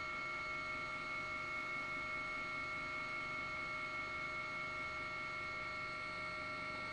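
Steady cabin hum of a news helicopter, heard through the reporter's microphone: a constant drone with several high, unchanging whining tones over it.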